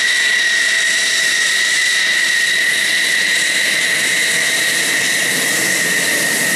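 F-16 fighter jet taxiing, its jet engine running at low power with a loud, steady high whine over a rushing noise.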